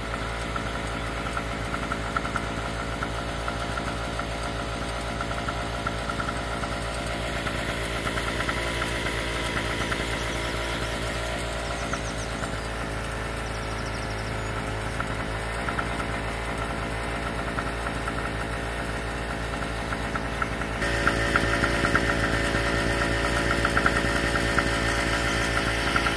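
A motor engine running steadily with an even hum, getting louder about 21 seconds in.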